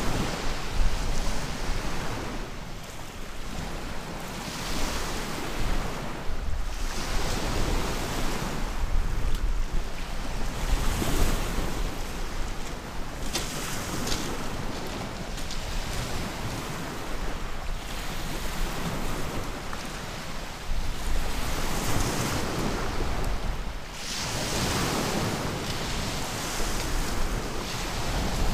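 Sea waves breaking and washing up a pebble beach, swelling and fading every few seconds, with wind buffeting the microphone.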